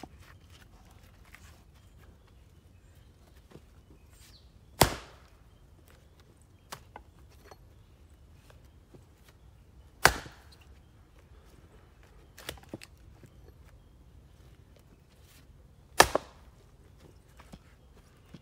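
An axe splitting black locust firewood rounds on a chopping block: three sharp chops about five to six seconds apart, with a few lighter knocks of wood between them.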